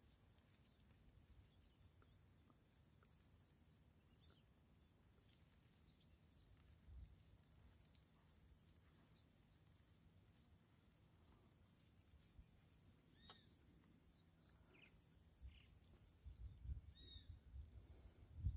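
Near silence: a faint, steady high-pitched insect drone, like crickets, with a few faint bird chirps midway and some low rustling bumps near the end.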